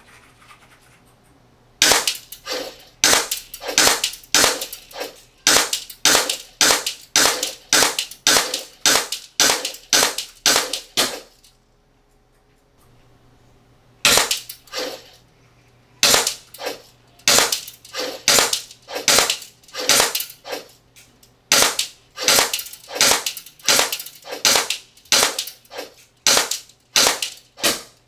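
VFC Glock 42 gas blowback airsoft pistol firing shot after shot, about two sharp cracks a second. There is a pause of about two seconds a little before halfway, and shorter breaks later on.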